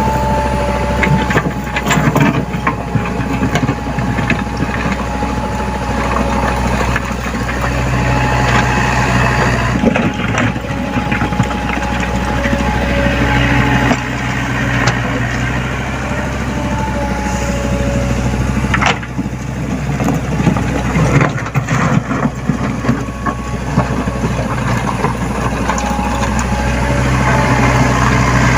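Mini excavator's diesel engine running steadily with a thin whine over it, and repeated sharp knocks and clanks of steel and rock scattered throughout.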